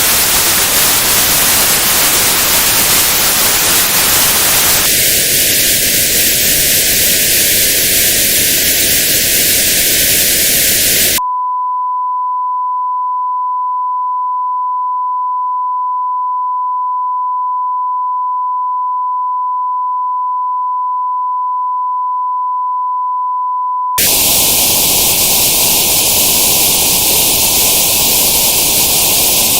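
Tinnitus-test audio: plain white noise, then from about five seconds in the same hiss with a band around 1,000 Hz notched out. About eleven seconds in it switches to a steady pure 1,000 Hz tone, and near the end white noise returns with the notch moved up to around 1,500 Hz.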